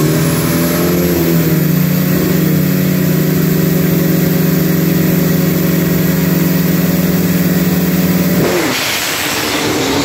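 Engines of street-class drag-racing trucks held at a steady high rev on the start line. About eight and a half seconds in they launch: the steady engine note drops away and turns into a loud rush of noise as the vehicles pull off.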